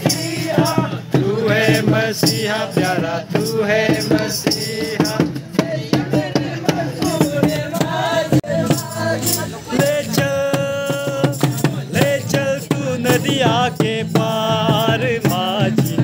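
Lively music with singing, a shaker rattling on the beat, and people clapping along.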